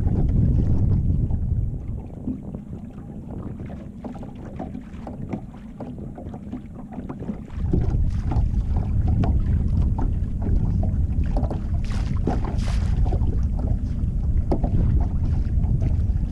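Wind buffeting the microphone on an open boat, a loud uneven rumble that drops off for a few seconds about two seconds in and comes back about eight seconds in. A few faint clicks and a short hiss come about twelve seconds in.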